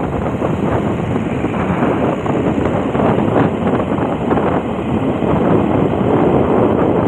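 Loud, steady rush of wind buffeting the microphone, mixed with the road and motor noise of a vehicle travelling at speed.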